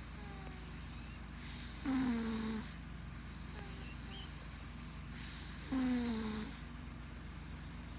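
Snoring from a very small sleeper: two snores about four seconds apart, each a short nasal snore that slides slightly down in pitch.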